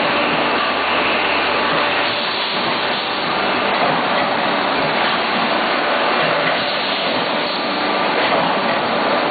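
PS foam disposable food container machine running, a steady, unbroken mechanical noise with no distinct strokes or pauses.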